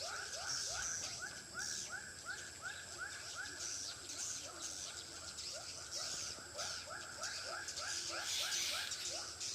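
Edible-nest swiftlets twittering: a rapid series of short rising chirps, about four a second, over a dense high-pitched chatter.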